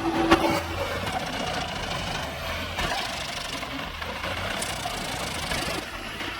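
A heavy machine's engine running steadily, with irregular sharp knocks over it and the loudest crack just after the start.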